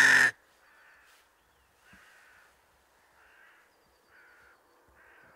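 Crows cawing: a loud caw ends right at the start, followed by a series of faint, short caws about once a second.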